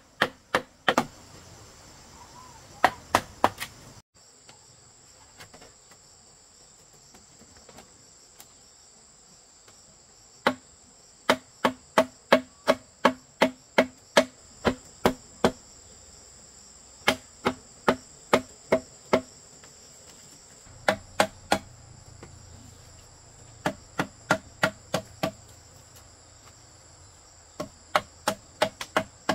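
Bamboo struck with a tool in quick runs of sharp knocks, about two to three a second, each with a short hollow ring, while a bamboo wall frame is put together. From about four seconds in, insects chirr steadily behind the blows.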